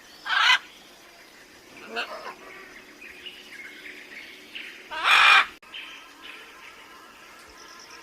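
Bird calls: two loud, harsh calls about half a second long, one near the start and one about five seconds in, with a weaker call and softer chirping between them.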